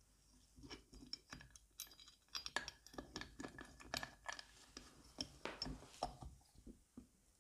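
Faint, irregular clicks and light metal clinks from steel milling-jig parts being handled and set on an aluminium crankcase: a plate with a welded-in bearing, bolts, and a shaft carrying a cutter.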